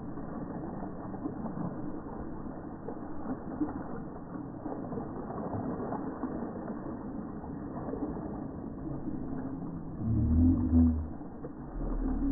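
Water splashing and spattering onto a person and the rock she sits on, with a couple of louder low rumbles near the end.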